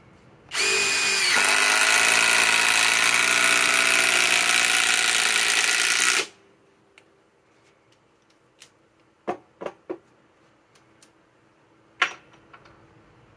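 A SKIL PWR CORE 20 cordless impact driver drives a 6-inch TimberLOK screw into timber. It runs loud and steady for about six seconds, then stops abruptly. A few short clicks follow.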